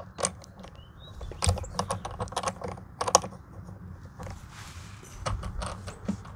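Irregular clicking and scraping of a high-pressure hose's plastic coupling being screwed by hand onto the threaded outlet of a Sun Joe SPX3000 electric pressure washer. The clicks come in quick runs in the first half and again shortly before the end.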